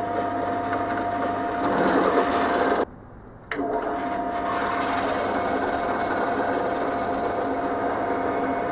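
Bench drill press running and drilling into a Zamak zinc-alloy casting, a steady motor hum with cutting noise that grows louder about two seconds in. The sound cuts off abruptly for half a second about three seconds in, then runs steadily again.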